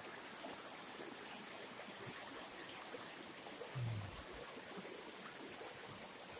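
Faint, steady rush of a river. About four seconds in there is a short low hum.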